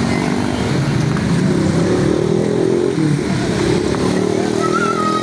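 Road traffic engines running, with the pitch shifting as vehicles pull and pass, and a short high tone near the end.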